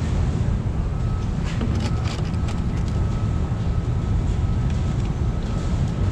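Steady low machine rumble of a truck repair bay, with a faint steady whine through the middle and light clicks and knocks as a dispenser hose nozzle is handled and pushed into a plastic jug.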